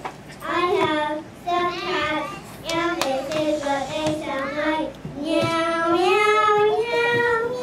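A young child singing a song into a microphone without instrumental backing, ending on a long held note that rises.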